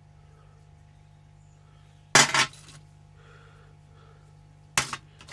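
Metal sockets from a socket set clinking together as they are handled, in two short bursts: a double clink about two seconds in and another near the end.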